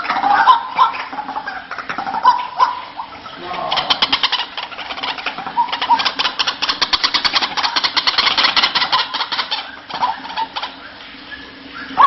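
White-breasted waterhen (ruak-ruak) calls from a bird-trapping lure recording. Short repeated notes give way, about four seconds in, to a long fast rattling chatter, and short notes return near the end.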